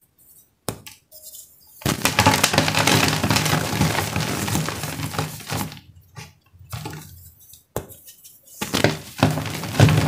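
A dry block of homemade gym chalk cracking with a sharp snap as it is broken in the hands, then crunching and crumbling between the fingers in long dense stretches as it is crushed to powder, with a second sharp snap later on.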